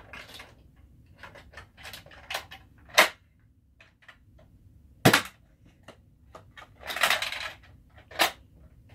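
Nerf Sledgefire spring-powered break-action blaster being loaded and fired: small plastic clicks and clacks, then two loud sharp snaps about two seconds apart, from the blaster firing and its barrel snapping shut. A short rasping clatter follows near the end, then another sharp click.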